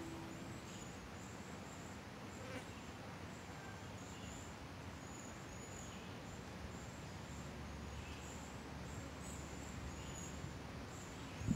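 Faint woodland ambience: insects chirping in short, high-pitched notes that repeat irregularly over a low hiss. The last note of a ukulele fades out at the very start.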